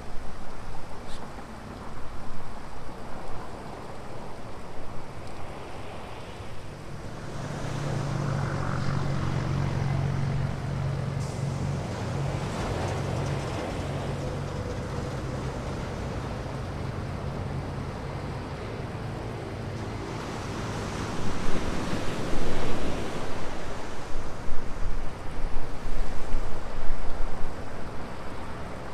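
Surf washing and breaking on a sandy beach in a continuous rushing noise. Over it, a motor vehicle's engine hums steadily for about a dozen seconds in the middle. The surf grows louder and choppier over the last several seconds.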